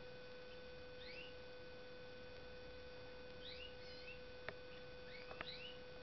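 Faint, short rising chirp calls from caged finches, a goldfinch and a serin, a few notes at a time. There are a couple of sharp ticks about four and a half and five and a half seconds in, over a steady electrical hum.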